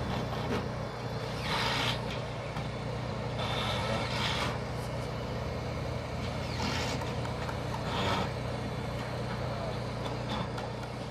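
Engine of a heavy work machine running steadily, with a hiss that comes and goes in short bursts every second or two.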